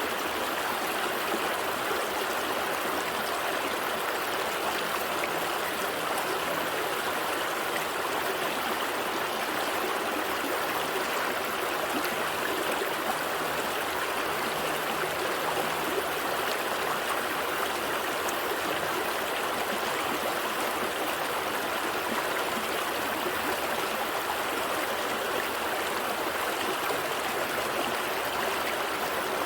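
A gentle stream flowing steadily, an even rush of water with a light trickle and gurgle.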